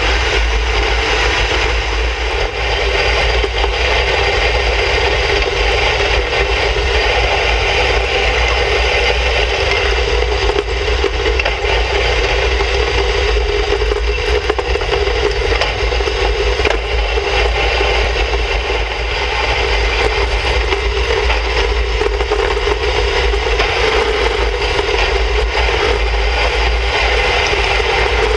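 Skimmer iceboat's runners scraping and hissing steadily over snow-covered pond ice as it sails, with wind buffeting the microphone.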